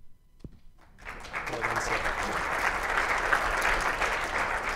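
Audience applauding, starting about a second in and continuing steadily as a dense crackle of many hands clapping.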